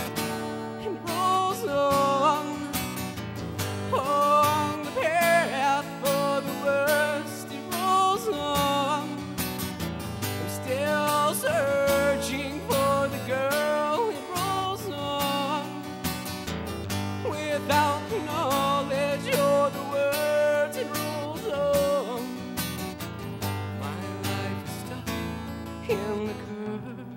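Steel-string acoustic guitar, fingerpicked, with a man's voice carrying a wavering melody over it. The sound fades away at the very end.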